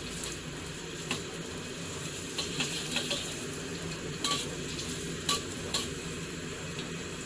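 Ginger sizzling as it fries in hot oil in a pan, stirred with a utensil that clicks and scrapes against the pan several times.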